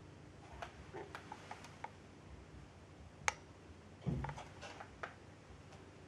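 A low, steady hum of unknown origin, heard through the house, with scattered faint clicks, one sharp click a little over three seconds in and a dull thump just after four seconds.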